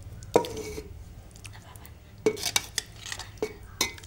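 Steel slotted ladle clanking and scraping against a steel pan and pot while chicken masala is spooned onto rice. One ringing clank comes about a third of a second in, then a run of lighter taps and scrapes over the second half.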